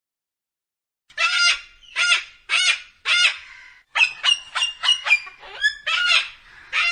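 Goose honking: four drawn-out honks, then a quicker run of shorter honks.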